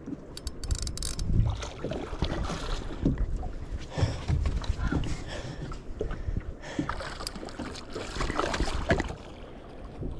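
Wind buffeting the microphone on a small fishing boat, with irregular knocks and handling rustles throughout.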